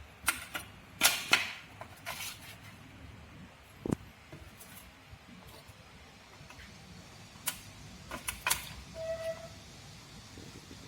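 Sharp clicks and light knocks of small metal injector parts being handled and set down on a workbench during disassembly of a common rail injector. A cluster comes in the first couple of seconds and more around three-quarters of the way through, with a brief faint ring near the end.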